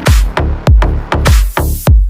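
Electronic dance music with a heavy, pounding kick drum, about three beats a second.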